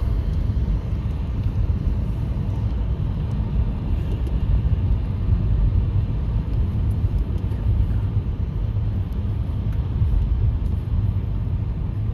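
Steady low rumble of road and tyre noise inside a moving taxi's cabin, driving on wet roads.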